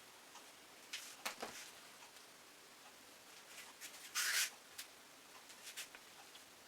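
Plastic paint bottles being handled and set down: a few light clicks and taps, with a short hiss about four seconds in.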